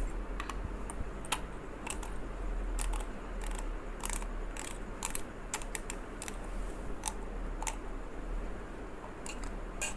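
Irregular small clicks and light metal knocks from a Timemore Chestnut C2 hand coffee grinder being taken apart by hand, its base unscrewed to get at the stainless steel burr.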